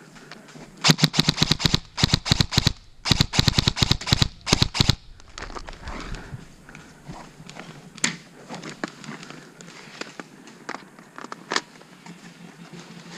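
Airsoft guns firing on full auto: several rapid bursts of sharp clicks in the first five seconds, then scattered single cracks.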